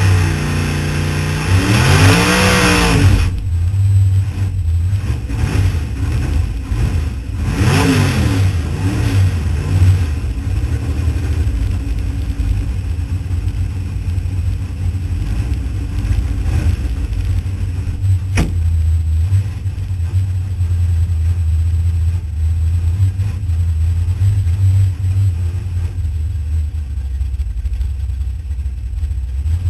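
Holden VL Commodore drag car's engine heard from inside the cabin. It is loud with a hissing rush for the first three seconds, which cuts off suddenly, with a rev at about two seconds and another around eight seconds. Then it settles into a steady low idle, with a single sharp click about eighteen seconds in.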